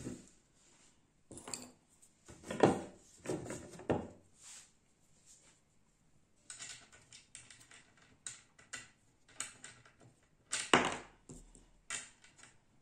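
Wooden parts of an embroidery frame knocking together as they are fitted, with a few sharp knocks, the loudest about three seconds in and towards the end, and a run of lighter clicks and taps in between.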